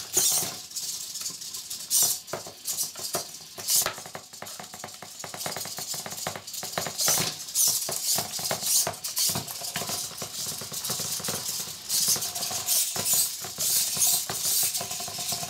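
Small hobby servo motors of a 3D-printed crawling robot whirring as its plastic fingertip taps and scrapes along a wooden floor, an irregular rattling clatter of many quick clicks. Keyboard keys click as the robot is steered.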